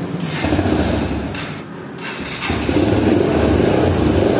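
Yamaha YBR single-cylinder motorcycle engine cranked on the electric starter in first gear with the clutch pulled in. It catches about halfway through and settles into a steady idle. The start shows the new clutch safety switch is working.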